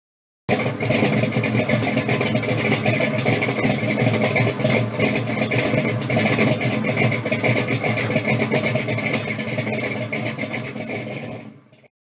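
A car engine running, with a steady high tone on top. It starts abruptly and fades out near the end.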